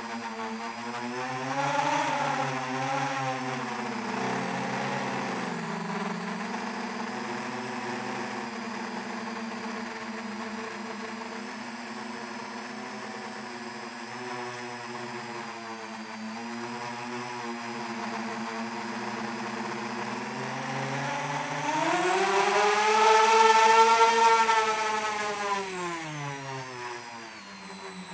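A 7-inch FPV quadcopter's brushless motors and propellers whining, recorded on board; the pitch wavers with throttle changes, then rises sharply and gets loudest about 22 to 25 seconds in under a burst of throttle, and drops away near the end.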